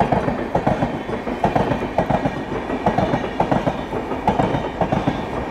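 Passenger train coaches running past on an adjacent track, their wheels clattering over the rail joints in a steady clickety-clack rhythm of repeated clacks over a continuous rumble.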